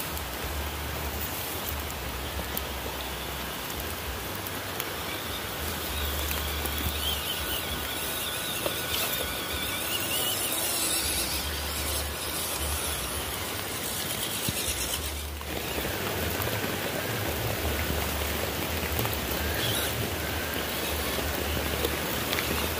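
Small RC 4x4 trucks' electric motors and gears whining, rising and falling a few times and strongest in the middle, over a steady rough hiss.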